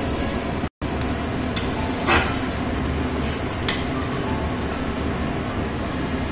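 Metal spatula scraping and clinking against an aluminium kadai as thick spinach paste is stirred, a few short scrapes, the loudest about two seconds in, over a steady background rumble. The sound cuts out briefly just under a second in.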